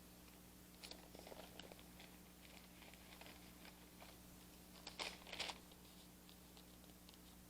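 Near silence over a steady low hum, broken twice by faint rustling of paper, once about a second in and more clearly around five seconds in.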